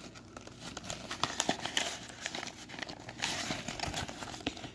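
Cardboard box being torn and pried open by hand: irregular crackling, tearing and scraping of the cardboard, with many small sharp clicks.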